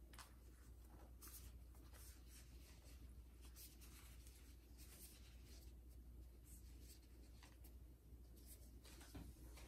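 Faint rustling and crinkling of thin filo dough and disposable plastic gloves as hands roll a filled strip of pastry, in soft brushes every second or so over a low steady hum.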